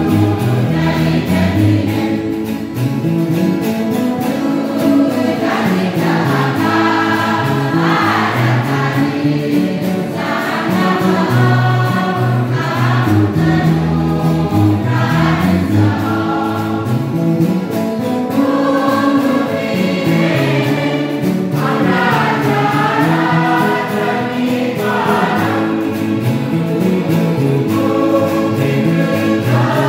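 A large mixed choir singing a hymn together, accompanied by guitars played by the front row.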